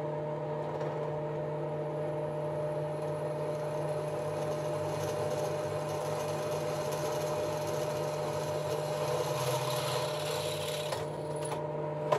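FABTEC B16 benchtop drill press running with a steady, quiet motor hum while a 7 mm bit drills through a metal pipe with a 5 mm wall. The hiss of cutting builds from about five seconds in and stops about a second before the end, while the motor keeps running.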